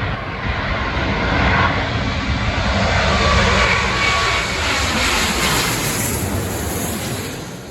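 Large airliner passing low overhead: its engine roar swells to a peak a few seconds in, with a faint whine, then fades near the end.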